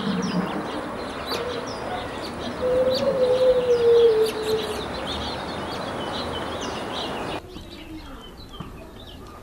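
Many small birds chirping, with one long, wavering, slightly falling call standing out about three seconds in. About seven seconds in the sound drops suddenly to a quieter background with a few faint chirps.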